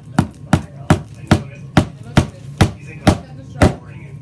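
A steady series of sharp knocks, about two a second, nine in all.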